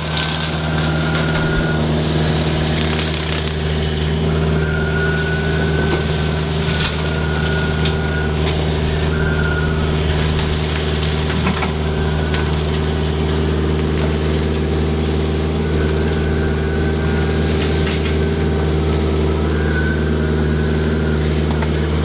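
Machine engine running steadily, driving a Cyclone 48-inch hydraulic open-face rotary brush mower, with scattered crackling and snapping as the blades shred brush and wood.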